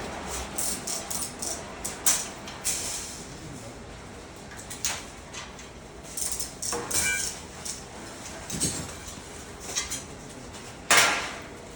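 Metal microwave-stand parts knocking and clinking together during assembly: a run of short knocks, a brief metallic ring partway through, and a louder clank near the end.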